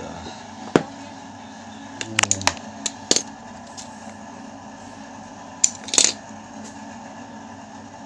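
Sharp clicks and snaps from hands working a hair dryer's power cord with a utility knife as the cord is cut and stripped. There is one click just under a second in, a quick cluster of several around two to three seconds in, and two more around six seconds in.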